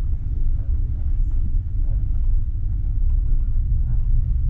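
Car driving on a dirt road: a steady low rumble of engine and tyres on the unpaved surface, with faint scattered rattles over it.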